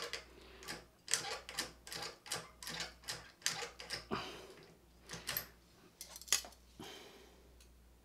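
Vintage Master Lock No. 77 padlock worked with its newly impressioned key: a run of irregular metal clicks and rattles as the key turns the lock, the sign that the cut key now operates it. The clicks thin out and stop near the end.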